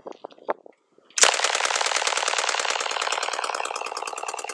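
MK760, a 9 mm clone of the Smith & Wesson Model 76 submachine gun, firing one long full-auto burst of about a dozen shots a second from its open bolt. The burst starts about a second in after a few faint clicks and stops abruptly near the end.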